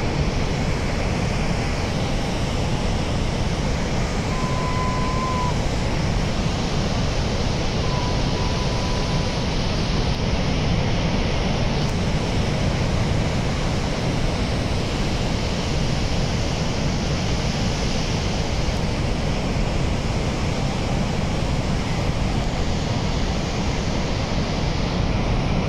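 Steady roar of Niagara Falls, an even rush of falling and churning water with no breaks.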